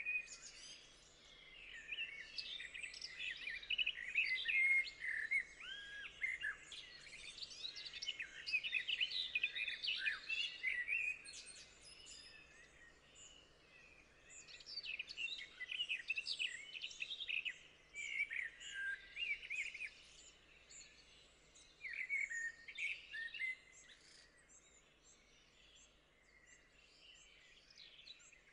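Small songbirds singing and chirping in quick, varied phrases, in several bouts with short lulls between.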